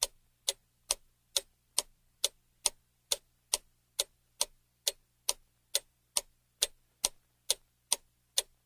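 Clock-ticking sound effect counting down, a steady tick about twice a second with nothing between the ticks.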